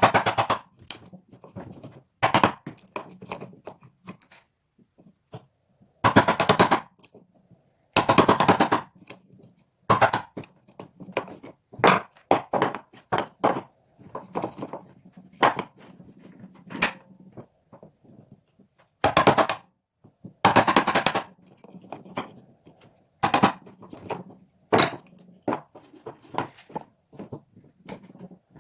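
Hand work on a pine wood block: irregular knocks and taps mixed with several short scraping strokes.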